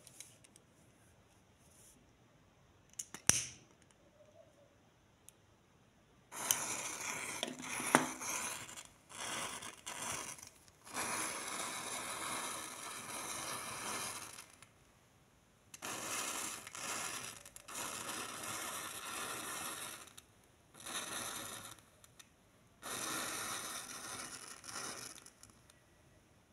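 A row of wooden matches flaring one after another as the flame runs along their heads: a short sharp strike about three seconds in, then from about six seconds on, hissing rushes in uneven spurts of one to four seconds with short gaps between.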